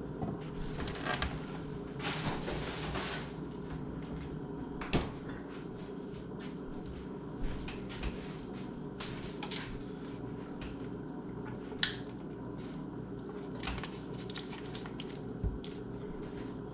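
Kitchen handling sounds: several separate sharp knocks and clicks of cupboard doors and items being moved, a few seconds apart, over a steady low hum.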